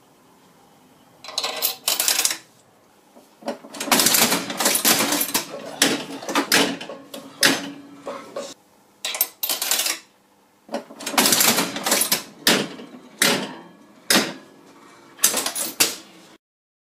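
Vintage Pace Kitty mechanical slot machine being played: the coin goes in, the handle is pulled, and the reels spin and come to a stop with a run of clattering mechanical clicks and clunks, in several bursts.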